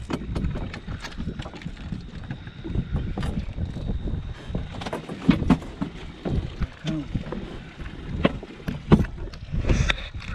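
A hooked catfish being fought on the line: water splashing with irregular knocks and clicks.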